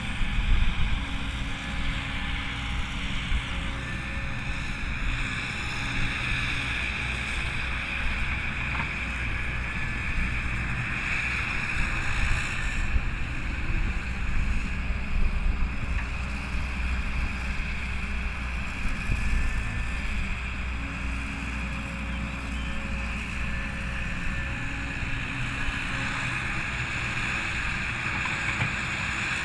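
Caterpillar 312B hydraulic excavator's diesel engine running under load as it digs and loads soil: a steady low rumble with a steady high whine over it, swelling a little now and then as the arm works.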